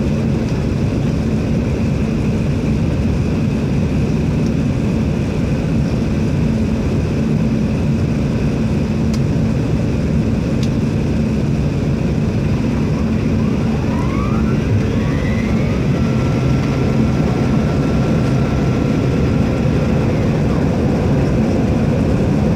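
Airliner cabin noise during descent: a steady roar of engines and airflow with a low hum. About 14 seconds in, a few faint rising whines, then a thin steady tone for some four seconds.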